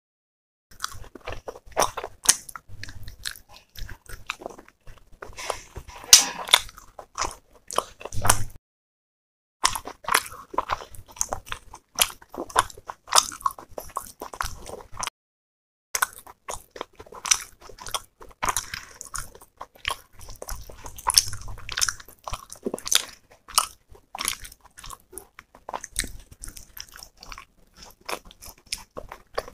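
Close-miked eating: wet chewing, smacking and crunchy bites of roti and chicken curry eaten by hand. The sound cuts out to silence twice, about a third and halfway in.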